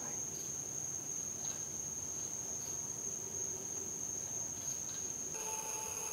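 Crickets trilling in one unbroken, high steady note. About five seconds in, a steady hum with several tones joins.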